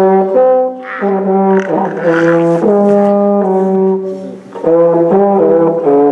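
A brass instrument playing a tune of held notes, the pitch changing every half second to a second, with a short break near the middle.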